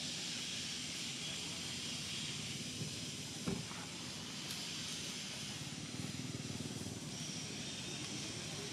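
Steady outdoor background hiss with a low rumble underneath, and one brief low thump about three and a half seconds in.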